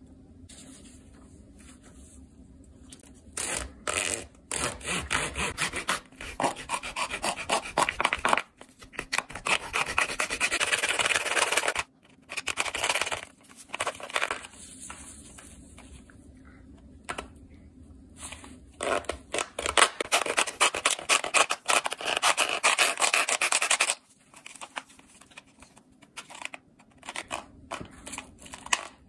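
Hacksaw blade sawing through a plastic Keurig K-Cup coffee pod filled with ground coffee: quick back-and-forth strokes in runs of a few seconds, with short pauses between. The sawing starts about three seconds in.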